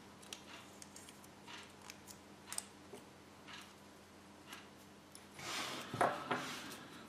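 Faint scattered clicks and light rustling of small plastic Kinder Surprise toy pieces handled between the fingers while a sticker is pressed on, with a louder rustle a little over five seconds in.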